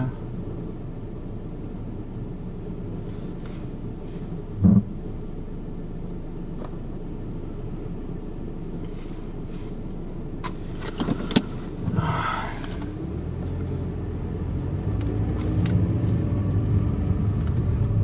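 Steady low rumble of a car driving, heard from inside the cabin. A single loud thump comes about five seconds in, and the rumble grows louder from about thirteen seconds in.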